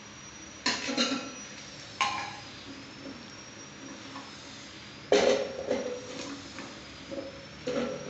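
Metal clattering and knocking from handling the stainless-steel slicing machine: a few sharp clanks at irregular intervals, the loudest about five seconds in, over a faint steady high whine.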